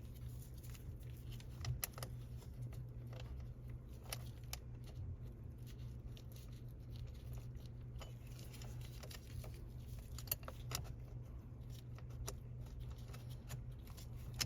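Scattered light clicks and taps of small plastic and metal parts being handled as a replacement paddle shifter and its bracket are fitted into a steering wheel, over a steady low hum.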